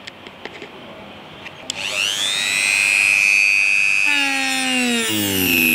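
Handheld rotary tool with a small cutting disc: a few light clicks as the bit is handled in the collet, then about two seconds in the motor spins up to a high, steady whine. Near the end a lower tone joins it and falls in pitch.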